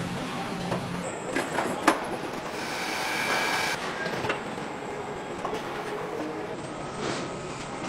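Car-factory machinery and robots running: a steady mechanical clatter, with a sharp metallic clank about two seconds in and a burst of hissing around three seconds in.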